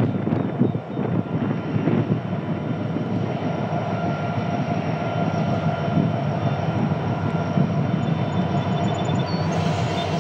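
Freight train's lead diesel-electric locomotives running steadily as the train approaches, a low engine drone, with gusts of wind on the microphone in the first couple of seconds.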